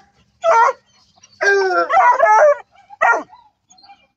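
Hunting hound barking in a run of loud pitched bays, the longest about a second, with short gaps between the calls.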